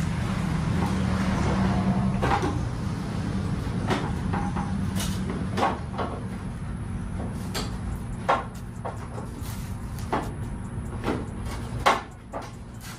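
About ten sharp, scattered clicks and knocks of parts being handled and pressed as a bumper filler is worked into place on the front bumper of a 1988 box Chevy, over a steady low hum.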